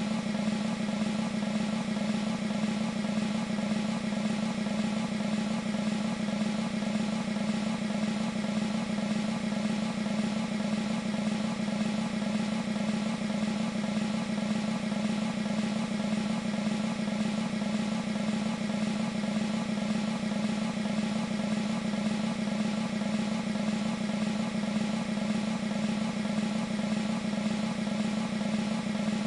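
Sustained military snare drum roll from a sampled E-mu Proteus 2 percussion patch, held steady and unbroken at an even level.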